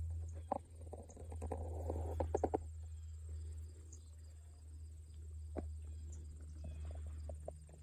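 Rabbits cropping and chewing grass: short runs of quick crunching clicks, the clearest about two and a half seconds in, over a low steady rumble.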